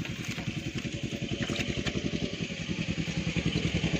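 A small engine running steadily off-screen with a rapid low chugging that slowly grows louder, with a few light clicks over it.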